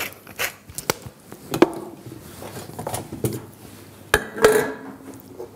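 Kitchen handling sounds while batter is made: a pepper mill grinding at first, then a spoon clicking and knocking against a steel mixing bowl and a flour tub, with soft scraping. The sharpest knocks come about one and a half and four seconds in.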